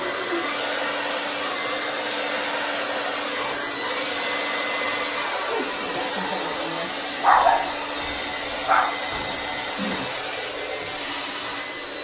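Handheld hair dryer running steadily, blowing wet acrylic paint across a tile, with a low hum under the rush of air. Two short, louder sounds break through about seven and nine seconds in.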